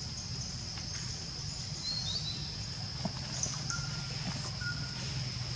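Outdoor background: a steady high-pitched hum over a low rumble, with a few short bird chirps scattered through it.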